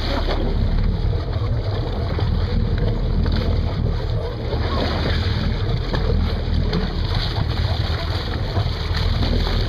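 Boat moving through open sea: water rushing along the hull and wind buffeting the microphone, over a steady low rumble.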